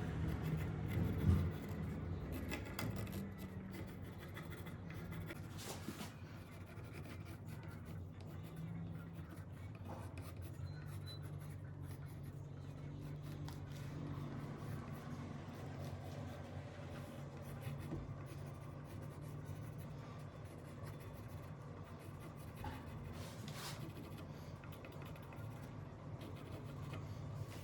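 Faint scratching and rubbing, like light hand work on wood, over a steady low hum.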